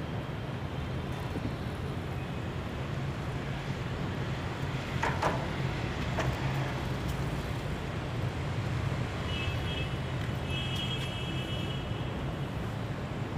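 Steady low hum of city background noise, with a couple of short knocks about five and six seconds in.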